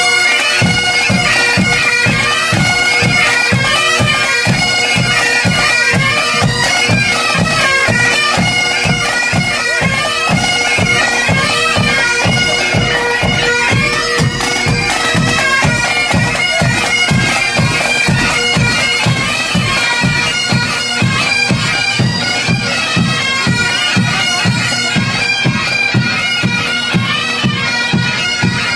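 Pipe band playing: bagpipes sound a melody over their steady drone, with a regular drum beat underneath.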